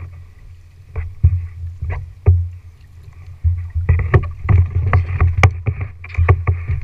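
Kayak paddles dipping and splashing, with sharp knocks and dripping water heard close on the kayak's plastic hull over a steady low rumble. The splashes and knocks come thicker from about halfway through.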